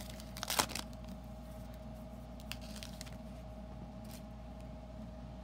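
Trading-card pack wrapper crinkling and tearing open in a short burst about half a second in. After that the cards are handled faintly, with a few soft ticks, over a steady low hum.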